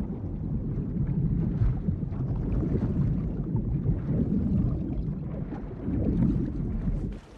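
Muffled underwater rumble and bubbling of bodies and debris plunging into the sea, surging louder about four and six seconds in, then dropping away suddenly just before the end.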